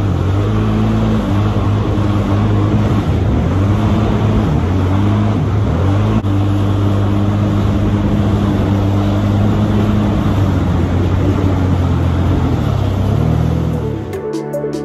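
Jet ski engine running at speed, its pitch rising and falling with the throttle, over a steady rush of spray and wind. Music comes in near the end.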